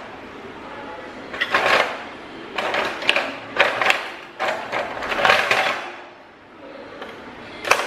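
Metal kitchen utensils clattering and clinking against each other and a bamboo drawer organizer as they are rummaged and lifted out by hand, in five or six short rattles, the sharpest one near the end.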